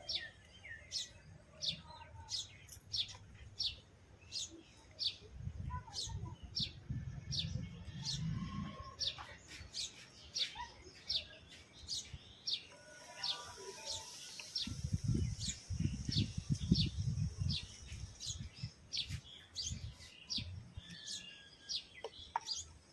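Small birds chirping, short high chirps repeating about twice a second throughout. Two stretches of low rumbling noise come about five and fifteen seconds in.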